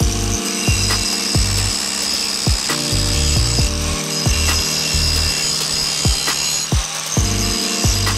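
Background music with a steady beat and bass line, over the steady high whine and hiss of a power tool grinding down steel as the anvil or hammer is resurfaced.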